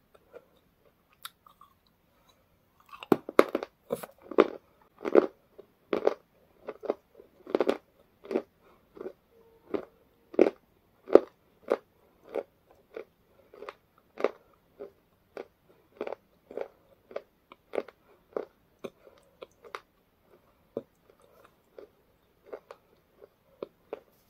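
A person chewing a crisp snack close to the microphone. After a quiet first few seconds come sharp crunches about two a second, loudest early and growing fainter and sparser toward the end.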